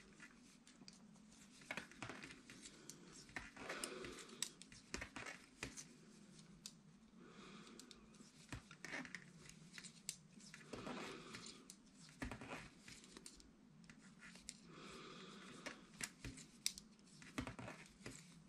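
Knitting needles clicking together with the rustle of wool yarn as stitches are worked by hand: faint clusters of small clicks and rustles every second or two.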